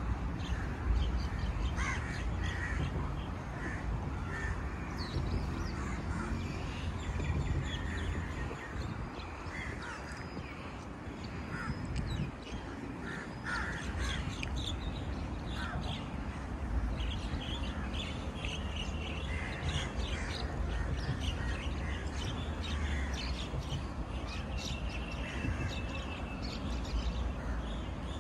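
Many birds calling, in short calls repeated through the whole stretch, over a low rumble.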